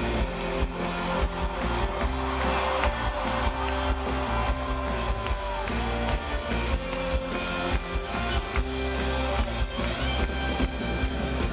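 Rock band playing an instrumental passage: guitars over a steady drum beat and bass, with no singing.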